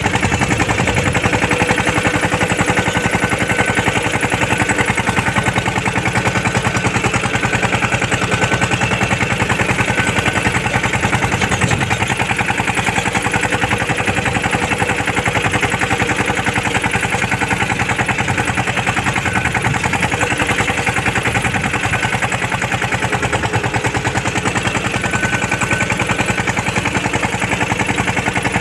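Mini tractor's diesel engine running steadily as it drives, heard close up from the driver's seat, with a fast, even beat.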